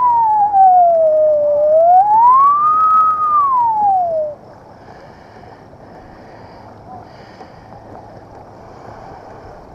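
A siren wailing, its pitch sweeping slowly up and down in two long cycles, then cutting off abruptly about four seconds in. Afterwards only faint wind and water sound remains.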